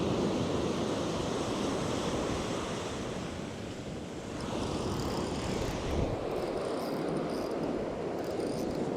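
Waves washing on the shore in swells, with wind buffeting the microphone.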